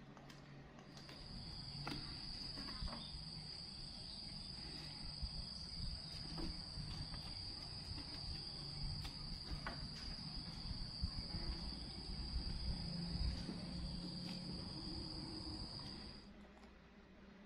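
Insects trilling in one steady, unbroken high-pitched tone that starts about a second in and cuts off near the end, over a low rumble with a few small knocks.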